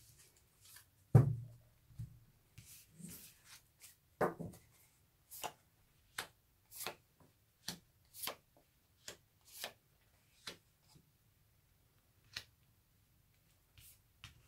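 Tarot cards being handled and dealt out: a dull thump about a second in, then a string of short crisp snaps, one every half second to a second, as cards are pulled off the deck and laid down, thinning out near the end.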